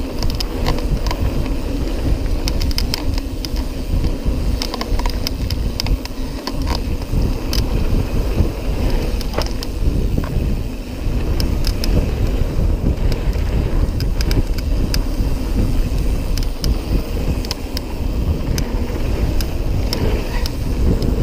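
Mountain bike descending a dirt and gravel trail at speed: tyres rumbling over the ground and wind buffeting the microphone, with frequent sharp clicks and rattles from the bike over bumps.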